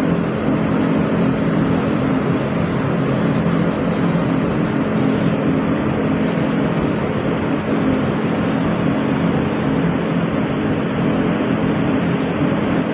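Steady rushing air in a paint spray booth, with a low hum underneath, from the booth's ventilation and a compressed-air spray gun spraying paint onto a car body.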